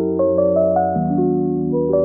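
Background music: a soft keyboard tune of sustained notes changing every half second or so, with a new bass note about a second in.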